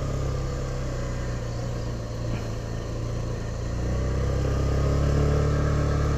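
TVS Scooty Pep+ scooter's small single-cylinder four-stroke engine running steadily while riding, with road and wind noise. From about two-thirds of the way through it picks up a little, rising slightly in pitch and getting louder.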